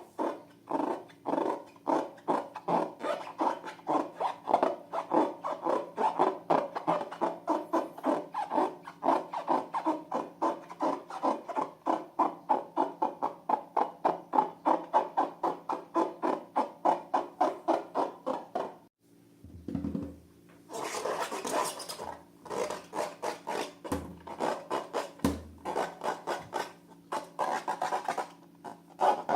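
Balloons rubbed by hand in quick, regular strokes, about two or three a second. After a short pause about two-thirds of the way in, the rubbing turns crisper and scratchier.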